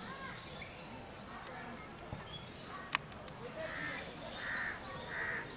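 A bird calling three times, under a second apart, in the second half; a single sharp click about halfway through and a few faint chirps near the start.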